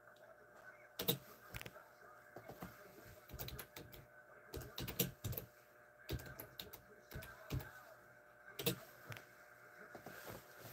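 Faint, irregular clicking of a computer keyboard being typed on, in short runs of keystrokes.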